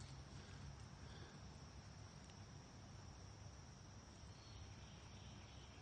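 Near silence: faint outdoor quiet with a steady, high-pitched cricket trill.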